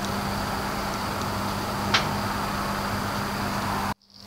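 Oven running, a steady fan hum over a constant low drone, with a single sharp click about two seconds in; the sound cuts off suddenly near the end.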